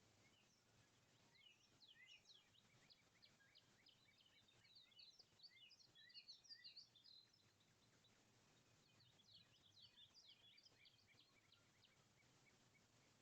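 Faint outdoor chorus of small birds chirping, many quick overlapping chirps in busy spells, thickest in the first half and again briefly later on.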